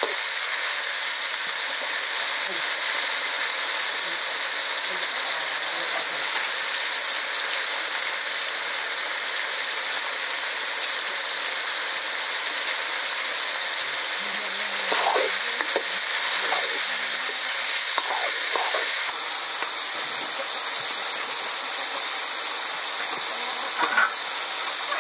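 Chicken curry frying and sizzling steadily in oil in a steel wok over a wood fire, with a metal ladle stirring through it. The sizzle shifts slightly about three-quarters of the way through.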